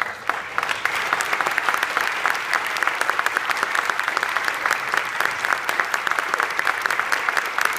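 Audience applauding, the clapping breaking out right at the start as the band's final note dies away, then holding steady and dense.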